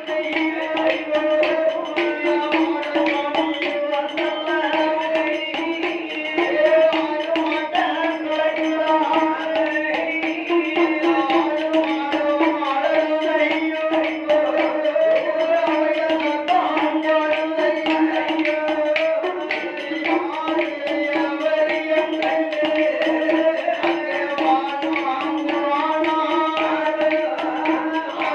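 Villu pattu (Tamil bow-song) performance: men singing the story in turn over a steady held drone note, with fast, dense percussion from the bow and a clay pot drum.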